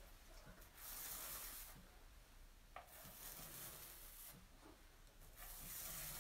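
Small paint roller pushed back and forth across a countertop, spreading a gritty stone-fleck coating: faint rasping strokes, about three long passes.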